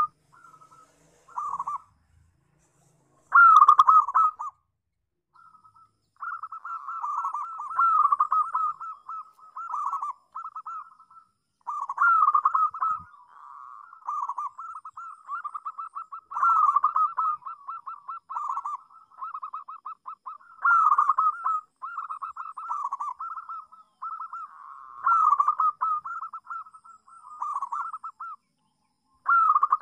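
Zebra dove (local perkutut) cooing: repeated phrases of rapid, rolling staccato coos, each opening with a louder note and coming roughly every four to five seconds. The phrases run almost without a break from about six seconds in.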